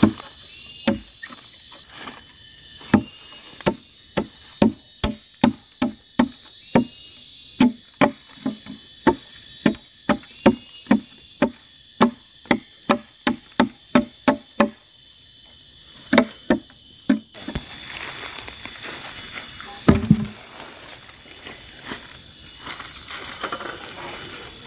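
Hand tool striking timber in repeated blows, about two a second with short pauses, stopping about 17 seconds in. A steady high-pitched drone of forest insects runs underneath and comes through more clearly once the blows stop.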